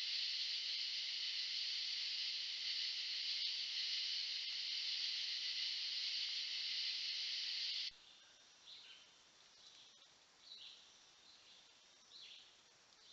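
A steady, dense chorus of night-singing insects that cuts off abruptly about eight seconds in. A bird then gives three short downward-sliding calls, about one and a half to two seconds apart.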